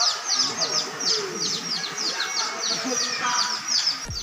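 A small bird chirping rapidly and repeatedly, several short high notes a second, each falling in pitch, over faint distant voices.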